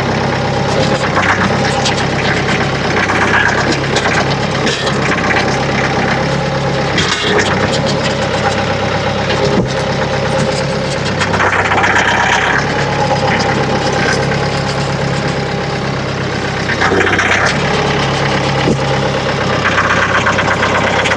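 Tractor engine running steadily, its speed stepping up and down every few seconds as it works.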